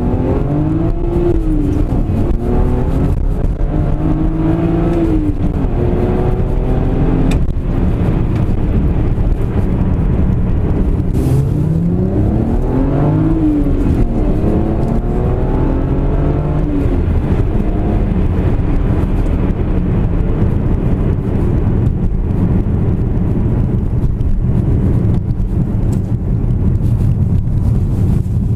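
2007 BMW 330i's inline-six on its stock exhaust revved up and let fall back three times, with a few sharp crackles from the exhaust as the revs drop. It then settles into a steady idle burble.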